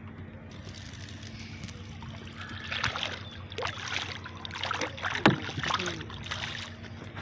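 A hooked catfish thrashing and splashing at the water's surface as it is hauled up on a hand line at the side of a boat, in irregular splashes from about two and a half seconds in, the sharpest about five seconds in. A steady low hum runs underneath.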